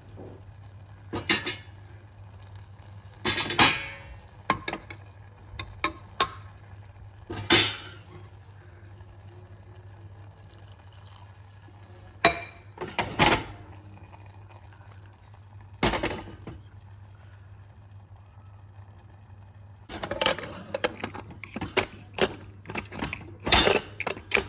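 Metal kitchenware on an aluminium pressure cooker: scattered clinks and scrapes of a steel spoon against the pot, then near the end a quick run of clanks as the lid is fitted and locked.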